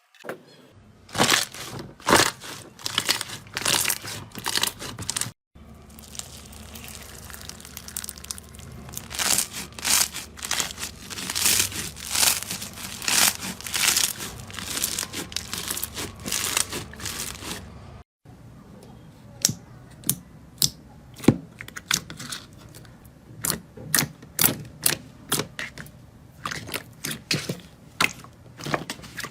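Slime being worked, giving dense crackling with sharp clicking pops. The sound breaks off abruptly about five seconds in and again after about eighteen seconds, and the last stretch is sparser, separate sharp clicks.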